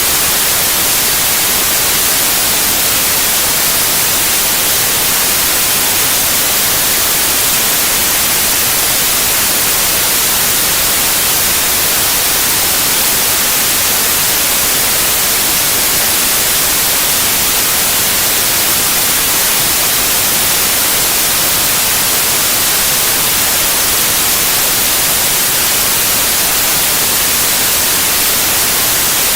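Synthetic white noise: a loud, steady, even hiss that does not change.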